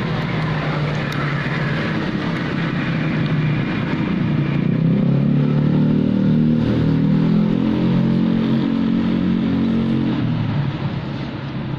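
Motor vehicle engine running close by, its pitch and loudness rising through the middle and easing off near the end.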